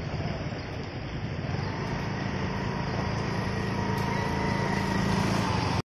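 Small motor scooter engine pulling away and coming closer, growing steadily louder, with a thin whine rising in after the first second or so. It cuts off suddenly near the end.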